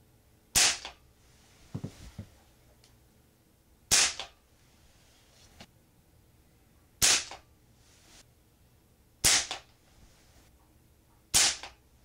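A Crosman American Classic multi-pump pellet pistol fired five times, two to three seconds apart, each shot a sharp crack. The pellets strike the plastic display window of a security control panel.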